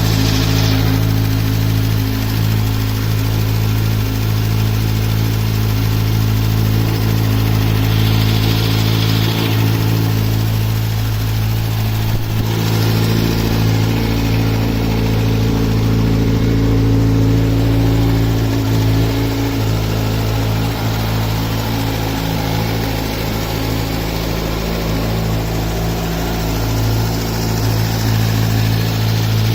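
Kawasaki Z900 inline-four engine idling steadily from a cold start, with a clicking/knocking noise that goes away once the engine warms up. The owner suspects the cam chain tensioner or the valves; the dealer calls it normal.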